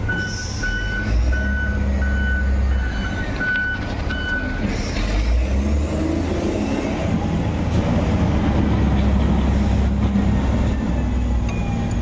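A heavy vehicle's engine running steadily, with an electronic reversing beeper sounding about twice a second, about eight beeps, that stops after about four and a half seconds.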